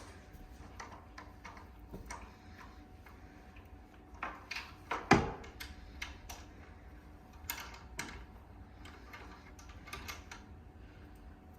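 Irregular light clicks and knocks of a spanner and metal fittings as the wheel nuts on a cot frame are tightened, with a louder clunk about five seconds in.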